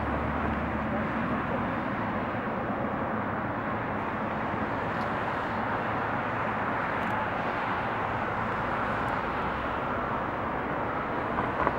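Airbus A380's four Rolls-Royce Trent 900 turbofans at climb power just after takeoff, heard from a distance as a steady, even jet noise that neither rises nor falls.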